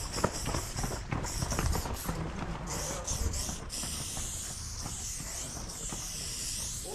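Aerosol spray-paint can hissing as paint is sprayed onto a metal cabinet. It comes in short spurts for the first few seconds, then from about four seconds in becomes one long, unbroken spray that wavers as the can sweeps across the surface.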